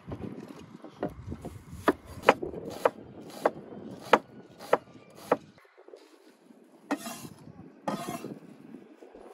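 Chef's knife slicing a red onion on a wooden cutting board: a steady run of sharp chops, a little under two a second, stopping about five seconds in. Near the end come two brief leafy rustles as a bunch of fresh coriander and dill is handled.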